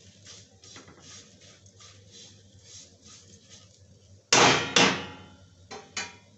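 Metal spatula scraping and tossing dry poha chivda around a metal kadai in quick, rustling strokes. A little over four seconds in come two loud metallic knocks with a ringing tail, then two lighter knocks near the end, as the spatula is rapped against the pan.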